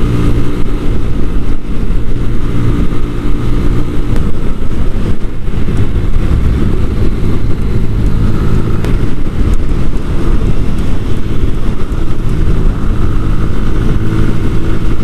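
A 125cc Sinnis Akuma motorcycle engine running at road speed, heard from the rider's own bike, with steady wind and road rush over it. The engine note shifts a little about four seconds in.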